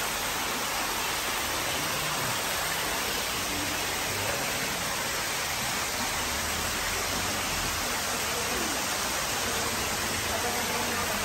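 Steady rush of water running from a holy-water spring fountain over rocks.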